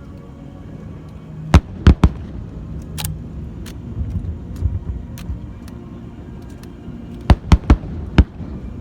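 Aerial fireworks bursting: sharp bangs in clusters, three in quick succession about a second and a half in, another about a second later, and a run of four near the end, over a steady low rumble.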